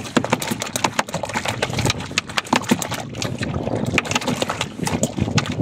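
Water lapping against a small outrigger boat at sea, with many sharp irregular clicks and knocks.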